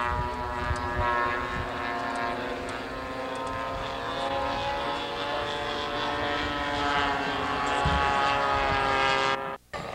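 Engine of a radio-controlled scale model warbird running steadily in flight, its pitch bending down and back up as the plane passes. The sound cuts out for a moment near the end.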